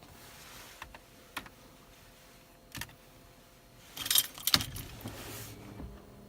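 Clicks and clatter of small parts and a tool being handled, with a burst of metallic jingling rattles about four seconds in, the loudest part.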